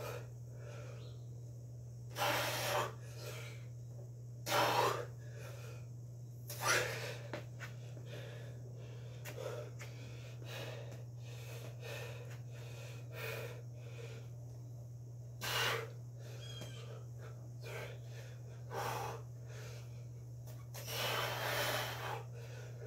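A man breathing hard through a set of Bulgarian split squats, with several loud, forceful exhalations a few seconds apart and a longer one near the end. A steady low hum runs underneath.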